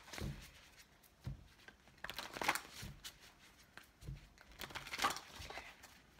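A tarot deck being shuffled by hand: several short bursts of card rustling with soft taps between them, the loudest about two and a half and five seconds in.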